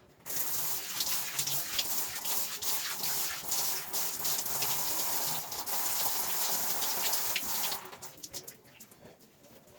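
Running water gushing hard, starting abruptly and cutting off about eight seconds in.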